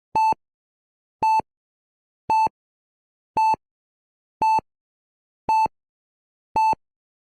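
A short electronic beep at one steady pitch, repeating evenly about once a second, seven times.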